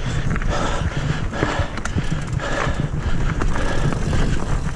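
Mountain bike ridden over a dirt singletrack trail, heard from a camera mounted on the bike or rider: a steady rumble and rattle of tyres and bike over the ground, with a rhythmic swell about once a second.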